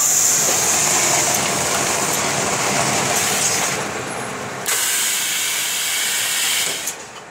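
Automatic fabric-roll press and plastic-wrapping machine running with a loud, steady hiss. The hiss breaks briefly about four and a half seconds in, then resumes and cuts off near the end.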